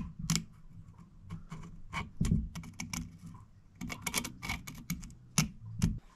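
A quick, irregular run of light clicks and taps, with a few sharper knocks, from small tools and a workpiece being handled on a workbench.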